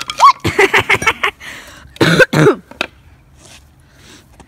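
Broken pieces of wooden board clattering on concrete in a quick run of knocks, then a person's loud, short vocal sound about two seconds in.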